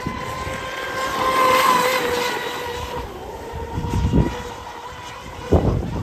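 High-pitched steady whine of an RC tunnel-hull boat's electric outboard motor running at speed, loudest about one and a half seconds in, then fading as the boat moves away. Low rumbles of gusting wind on the microphone twice in the second half.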